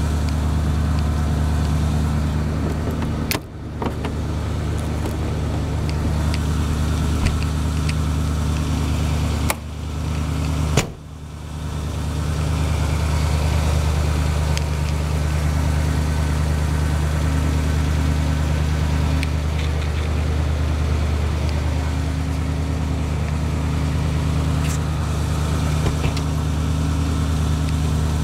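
1978 Dodge van's 318 V8 engine running at a steady idle, a low even exhaust note.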